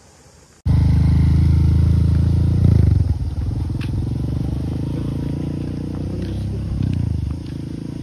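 Motorcycle engine running under way, cutting in abruptly about a second in. The engine note changes near three seconds and again near seven, then settles a little quieter.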